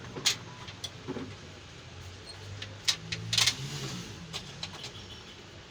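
A few scattered sharp clicks and taps from handling the keyboard's parts and tools during a contact repair, over a low steady hum.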